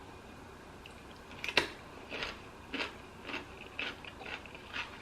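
A person chewing a mouthful of food with wet, smacking chewing sounds. There is one sharp click or bite about a second and a half in, then short chewing sounds roughly twice a second.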